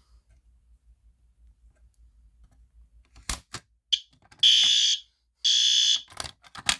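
A couple of sharp clicks, then a fire alarm horn sounds two short, loud, high-pitched blasts about half a second apart. More clicks and handling noises follow near the end.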